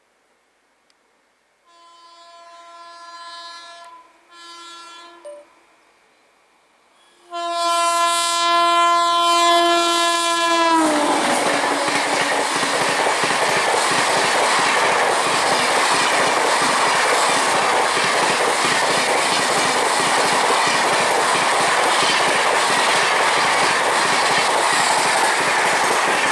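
Indian Railways express train locomotive horn sounding twice as the train approaches, then a louder long blast whose pitch drops as the locomotive passes. Then comes the loud, steady rush and clatter of the coaches going by at speed.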